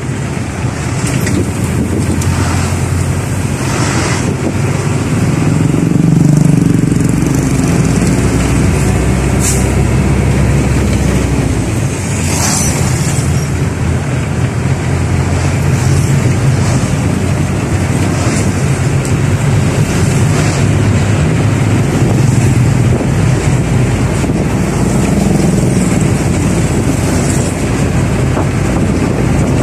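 Engine and road noise of a moving vehicle heard from on board, a steady loud rumble whose low hum shifts a little in pitch as it drives.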